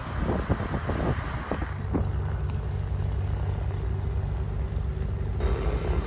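A vehicle running with a steady low hum. The sound changes abruptly about two seconds in and again near the end.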